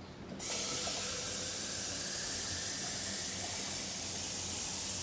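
Water running in a steady hissing stream that starts abruptly about half a second in.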